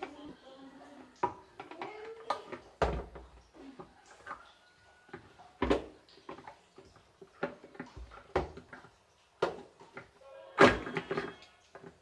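A screwdriver prying at the plastic centre cap of a washing machine's pulsator, giving a series of sharp plastic clicks and knocks a second or more apart. The loudest knocks come near the end, as the cap comes loose.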